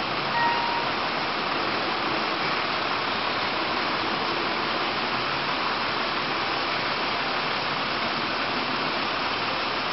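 Steady, even rushing noise with no distinct events, and a brief faint tone about half a second in.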